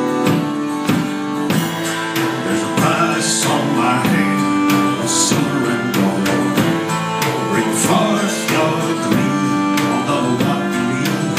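Live acoustic folk music: a steel-string acoustic guitar strummed in a steady rhythm, with a fiddle bowing and sliding over it.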